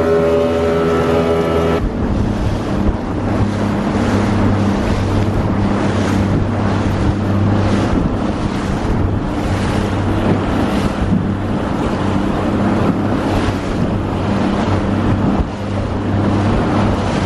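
Boat motor running at speed under way. About two seconds in it cuts to a lower, steady engine note with wind buffeting the microphone and water washing around the hull.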